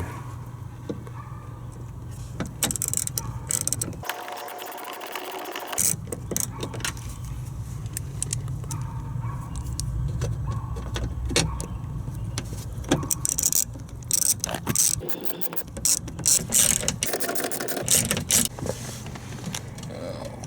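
Hands and a small tool working on a power-window motor as it is put back together: scattered small clicks and knocks of metal parts over a steady low hum.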